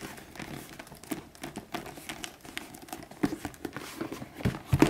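Leather frame bag being squeezed and flexed by hand to work the fold in along its sewn-on side panels: irregular rubbing and handling noise with scattered small clicks and a few sharper knocks, mostly near the end.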